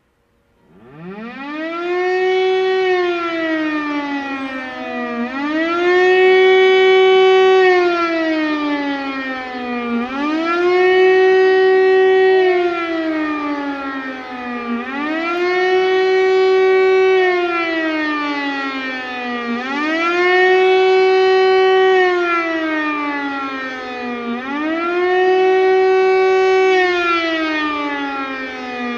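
Siemens-Schuckert Fm Si 40 high-tone electromechanical siren starting up about a second in, then wailing up and down in pitch about once every five seconds. Each cycle rises quickly, holds briefly at the top and falls off slowly. This is the former German 'Fliegeralarm' air-raid warning signal.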